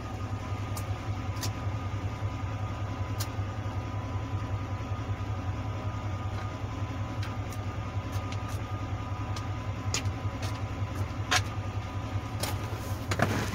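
A steady low hum with a few faint steady tones above it and several light clicks scattered through it.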